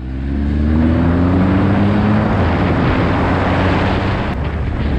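Triumph motorcycle engine accelerating: the revs rise for about two seconds, drop at an upshift, then pull on steadily, with heavy wind noise on the microphone.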